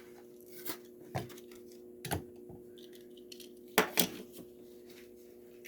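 Die-cast toy cars and their packaging being handled: about five sharp clicks and clinks of small hard objects, spread across a few seconds, over a steady low hum.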